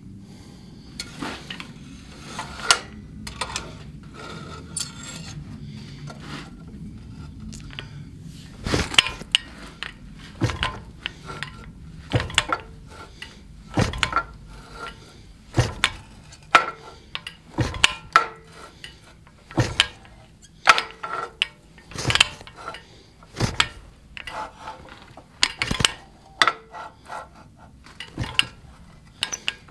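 Fly press driving a chisel into a red-hot square iron bar, cutting a row of notches along one side: a few light metal clinks at first, then from about nine seconds in a sharp metal clank with each stroke, about one every one and a half to two seconds.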